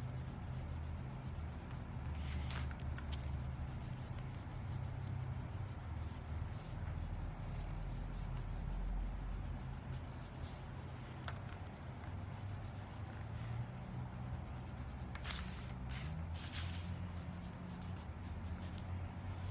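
A marker scribbling back and forth on paper, coloring in a large area, over a steady low rumble. There are a few sharper scratchy strokes, most of them near the end.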